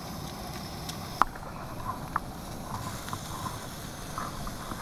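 Steady low outdoor rumble with a sharp click a little over a second in and a lighter click about a second later.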